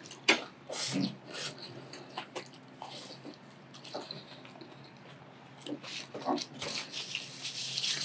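Close-miked chewing of a mouthful of food, with wet smacking and a few sharp crunches in the first second and a half. A paper napkin rustles against the mouth near the end.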